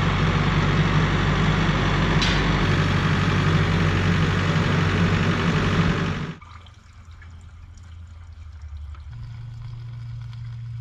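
Kioti RX7320 tractor's diesel engine running close by with a steady low hum for about six seconds, then it cuts to a much quieter stretch of fuel being poured from a VP racing can through its clear spout into the tractor's filler neck.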